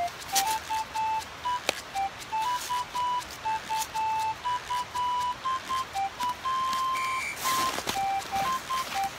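A simple electronic melody of plain beeping notes, one note at a time and changing pitch a few times a second. A sharp click comes about two seconds in, and there is a burst of rustling near the end.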